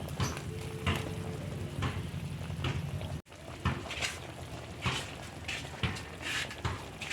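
Pork liver cooking in a pan, with a spatula scraping and stirring at irregular intervals of about a second over a steady low hum. The sound briefly cuts out about three seconds in.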